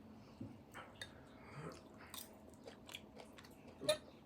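Faint chewing and biting of food: soft, scattered mouth clicks and smacks, with one louder click near the end.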